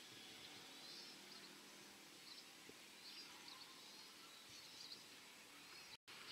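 Quiet outdoor ambience with faint, repeated bird chirps and trills. The sound cuts out for an instant near the end.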